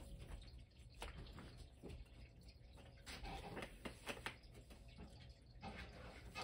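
Faint, scattered scrapes, rustles and light clicks of a cat squirming and rolling in a corrugated cardboard scratcher bowl.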